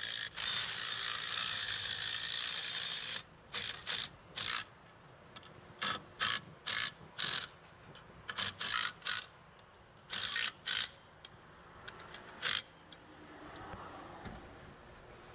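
Cordless power driver running fasteners through a steel wall bracket into the wall. It runs steadily for about three seconds, then gives a string of short bursts over the next nine seconds as each fastener is snugged, left short of fully tight.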